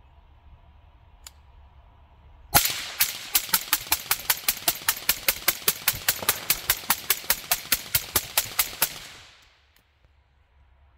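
Suppressed AR-style rifle with a Rex Silentium MGX suppressor firing about thirty shots in quick, even succession, roughly five a second, starting a few seconds in and stopping near the end, with a short fading tail after the last shot.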